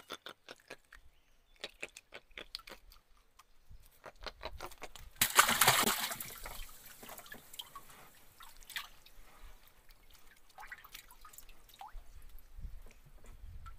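Water dripping and trickling around a small wooden boat, with a run of light taps during the first four seconds and one louder splash about five seconds in.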